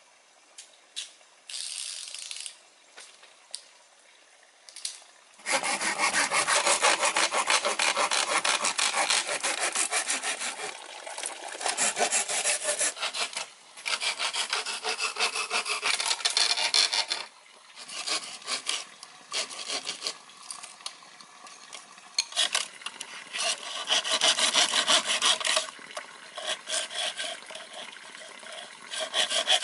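Rapid, rhythmic scraping strokes of a hand tool, like sawing or rasping, starting about five seconds in after a few faint taps and going on in bouts with brief pauses.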